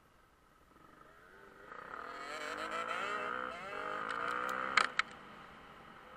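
Dirt bike engine accelerating, its pitch climbing, dropping briefly, then climbing again. Two sharp clicks come near the end of the run.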